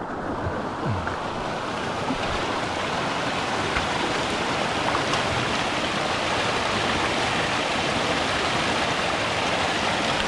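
Running water of a small stream: a steady rushing and splashing that grows a little louder in the first couple of seconds, then holds.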